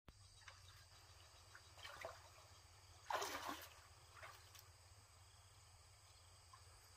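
Shallow pond water splashing softly as a person wades and sweeps a long stick through it. The loudest splash comes about three seconds in, with a few fainter ones around it.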